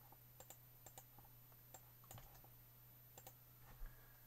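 Faint, scattered single clicks of a computer mouse and keyboard over a low steady hum, as a cell's number format is set.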